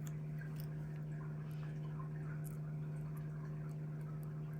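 Steady low hum with a few faint small ticks and rustles of sticker paper being handled.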